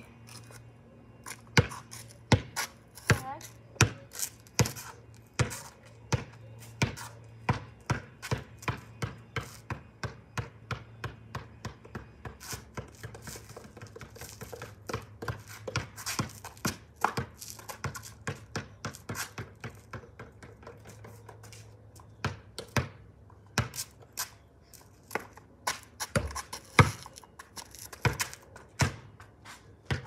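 Basketball dribbled on a concrete driveway: sharp bounces, mostly about two a second, thinning out to single louder bounces with short gaps near the end.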